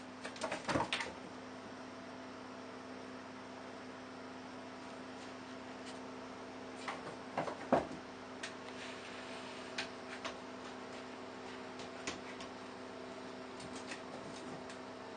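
A cat playing in an empty bathtub, batting a small object against the tub: scattered clicks and knocks, loudest in two clusters, about a second in and near the middle. A steady electrical hum lies under it.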